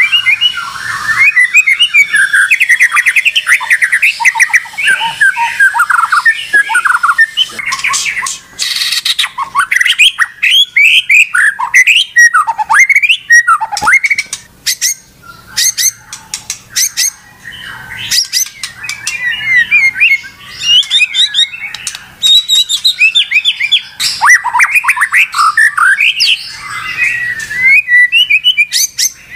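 White-rumped shama singing a loud, continuous song of rapid, varied whistled phrases and sweeping notes, mixed with sharp clicks and rattles. It is agitated song in full voice, the bird worked up and not stopping.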